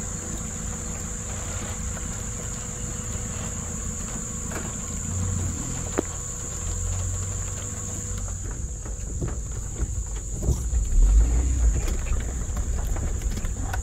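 Lifted 2001 Honda CR-V's four-cylinder engine running low and steady as it crawls over a loose, rocky track. From about eight seconds in there are scattered knocks and clicks, and the rumble gets heavier a couple of seconds later.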